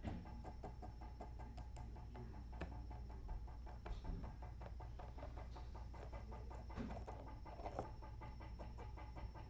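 A stone in a twine harness, dragged on a string over a bed of river stones, scraping faintly and clacking against them a few times. Under it runs an even, fast ticking from the slowly pulsing motor that winds in the string.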